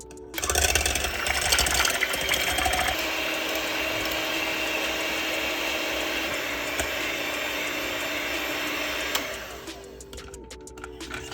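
Electric hand mixer running steadily for about nine seconds, whipping cream with chocolate; it is loudest for the first two seconds or so and then settles to an even whir before switching off.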